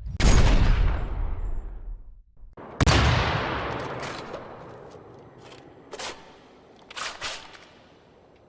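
Gunshot sound effect: two heavy shots about two and a half seconds apart, each with a long fading echo. A few light clicks follow near the end.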